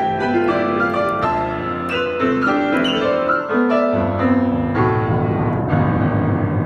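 Upright piano being played: a quick melody of single notes over lower chords, with deeper notes coming in about four seconds in.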